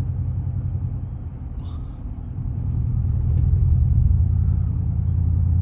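Low, steady rumble of a car driving on the road, engine and road noise, growing louder about halfway through.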